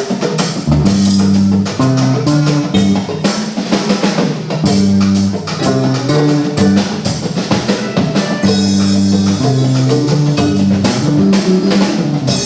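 Instrumental Afro-jazz music: a drum kit plays a steady beat with snare and rimshot strokes over a low line of held notes that changes pitch every second or so.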